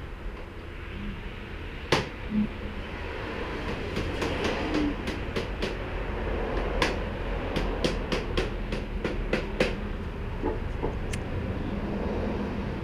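A steady low mechanical rumble with a run of sharp clicks and taps, mostly from about four to ten seconds in.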